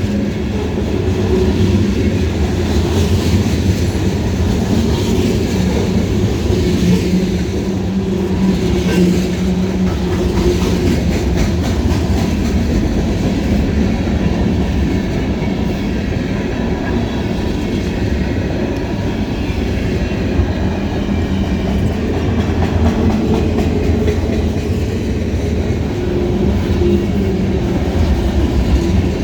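Freight train passing close by: a steady loud rumble with the clickety-clack of car wheels over the rail joints.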